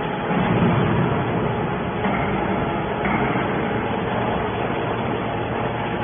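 Y81 hydraulic metal baler running: a steady mechanical hum and whir with no distinct strokes or impacts.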